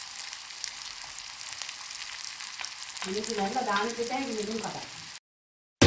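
Chopped shallots frying in hot oil in an aluminium wok: a steady sizzle full of small crackles. The sound cuts off suddenly near the end.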